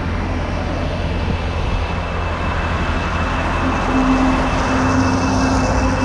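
Steady city road-traffic noise: a low, continuous rumble with a few held tones, getting a little louder about four seconds in.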